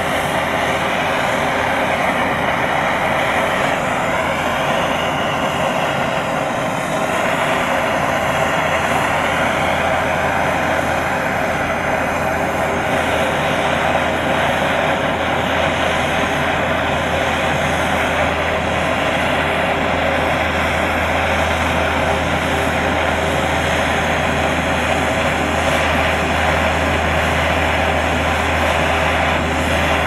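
Handheld gas torch burning with a steady rushing flame, heating aluminum up to brazing temperature for a flux-cored aluminum rod.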